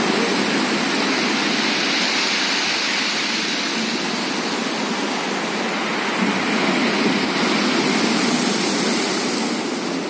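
Sea surf breaking and washing through a narrow channel between shoreline rocks: a steady rushing of foaming water that swells slightly a little past the middle.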